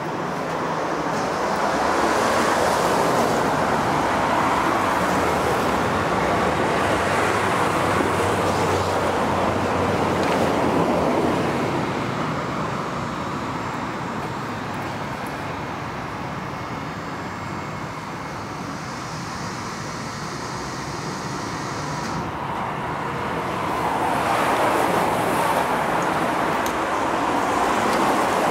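A steady rushing noise that swells loud for several seconds near the start and again near the end, with a low hum under the first swell.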